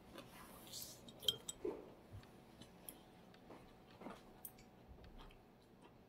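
Faint scattered clicks and clinks of chopsticks and tableware against dishes during a meal, with a brief hiss about a second in.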